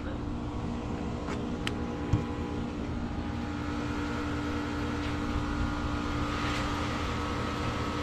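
Outdoor heat pump condensing units running: a steady compressor hum with fixed tones over the rush of the condenser fan. A light knock comes about two seconds in.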